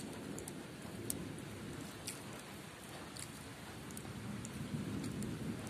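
Steady rain falling, a dull even rush, with scattered small clicks and taps as fried rice is worked by hand on a plate.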